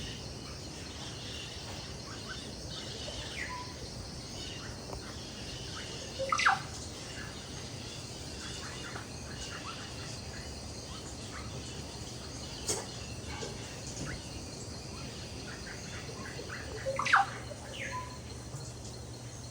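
Rainforest bird calls over a steady background hum: scattered small chirps throughout, and a louder sweeping call twice, about six seconds in and again near the end.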